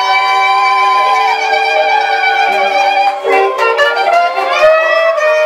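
Music: a slow melody of long held notes, some wavering with vibrato, with a brief dip a little past halfway.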